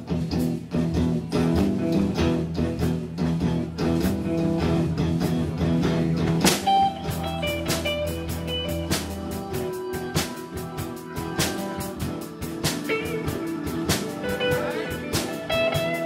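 A live jazz-blues band playing: electric guitar over a drum kit. About six and a half seconds in a loud accent hits, the held low chords drop out, and a single-note melody carries on over the drums.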